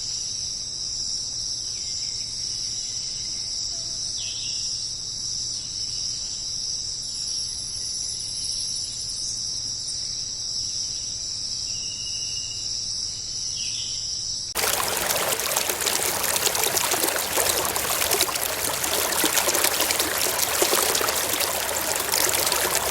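Steady high-pitched chorus of crickets or similar insects, with a few short falling calls over it. About two-thirds of the way through it cuts off abruptly and a louder, steady rush of running water takes over.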